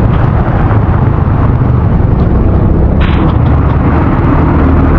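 Loud, steady rumble and hiss of heavy rain and wind on a DJI Osmo Action 4's built-in microphone, used without its casing, during a drive, with a low vehicle engine hum underneath.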